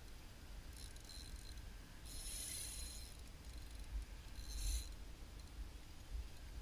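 Spinning reel being cranked in short spurts, a faint gear whir that comes and goes three times, the longest about a second long, over a low rumble of wind on the microphone.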